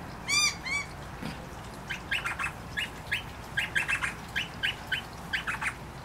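Noisy miners calling: two arched, ringing notes about half a second in, then a quick series of short, sharp rising chips, about three a second, from about two seconds in.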